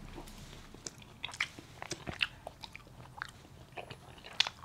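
Close-up mouth sounds of a person chewing and biting into sweets, with irregular small crunches and clicks.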